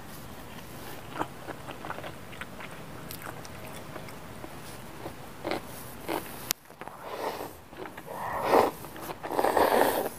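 Wet chewing of a chicken nugget with small sharp clicks, then from about seven seconds in a run of loud slurps as spicy instant noodles are sucked into the mouth.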